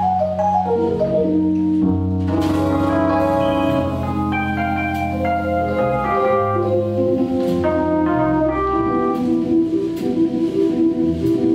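Jazz piano trio playing a slow ballad: piano notes and chords over walking double bass, with light cymbal strokes from the drum kit.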